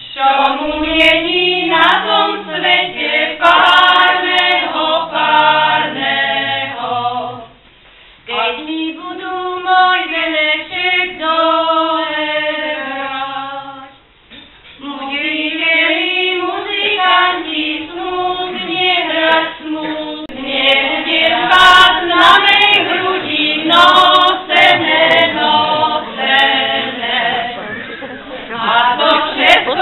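A group of mainly women's voices singing a Slovak folk wedding song unaccompanied, in phrases, with two short breaks: one about a quarter of the way through and one about halfway through.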